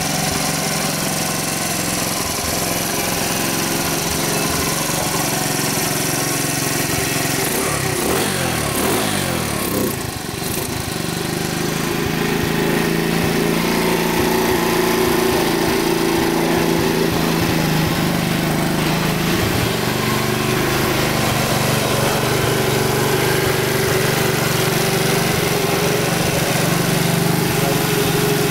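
Skyteam Skymax 125's single-cylinder four-stroke engine idling steadily, a little louder from about twelve seconds in.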